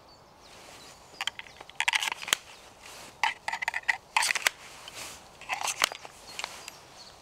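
Knives and a kydex knife sheath being handled on a belt: several clusters of short clicks, taps and scraping rustles, with pauses between them.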